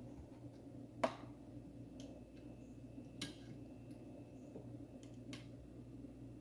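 Scattered sharp clicks and light ticks of a flat screwdriver prying at a plastic wiring connector clip on an alternator, the loudest about a second in and another about three seconds in, over a faint low steady hum.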